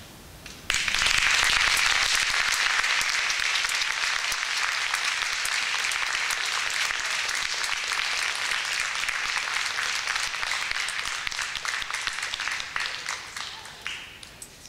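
Audience applauding, breaking out suddenly about a second in and slowly tapering off near the end.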